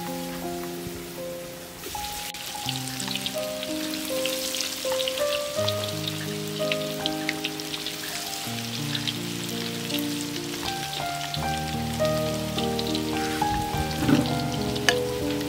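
Battered snakehead fish pieces deep-frying in hot oil in a wok, crackling with many small sharp pops that grow louder about two seconds in. Background music with a slow melody of held notes plays throughout.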